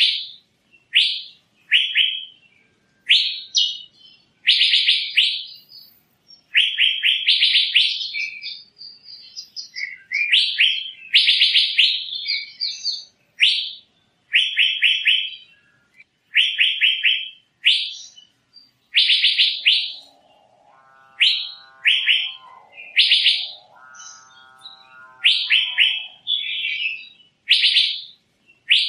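Asian fairy-bluebird (Irena puella) calling again and again: short, sharp, high notes about once a second, some run together into quick series. About two-thirds of the way through, a lower, rougher call sounds twice among them.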